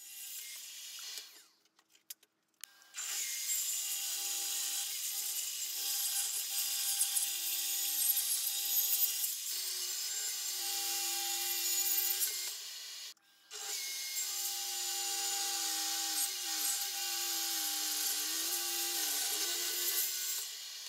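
Table saw running and cutting through hard maple leg stock: a steady blade whine with a wavering lower tone as the wood feeds through. It drops out briefly about two seconds in and again about thirteen seconds in.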